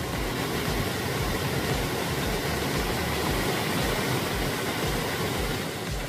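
Rushing water of a rocky mountain stream, a steady even roar with no let-up.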